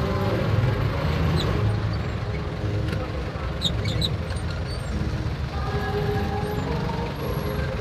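Outdoor street ambience: a steady low rumble of traffic with faint distant voices and music, and a few short high chirps near the middle.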